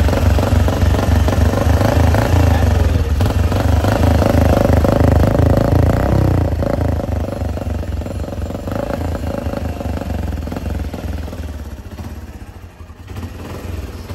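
Bajaj Platina motorcycle's single-cylinder engine running, with its exhaust muffled by a homemade DB killer plug fitted in the silencer tip. The steady low exhaust pulse is loudest for the first few seconds, then fades over the second half and dips near the end.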